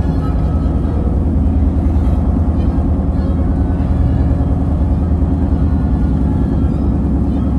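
Steady low road rumble of a car driving, heard from inside the cabin.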